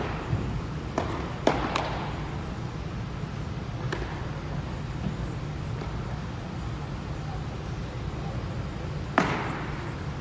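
Pitched baseballs popping into catchers' mitts: several sharp smacks that echo, the loudest near the end, over a steady low hum.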